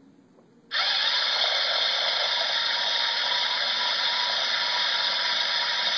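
Lego NXT Mindstorms robot's electric drive motors and gears running at speed, a steady loud mechanical whir like a power drill that starts suddenly about a second in and holds until the end.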